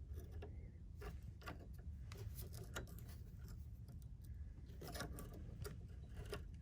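Irregular light clicks and clinks of hand work on a pickup's parking brake hardware, with a low steady rumble underneath.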